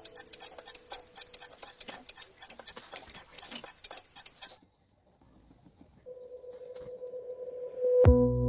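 Background music: a ticking, chiming track stops about halfway through, a brief silence follows, then a single held tone swells and an electronic track comes in with a heavy bass hit near the end.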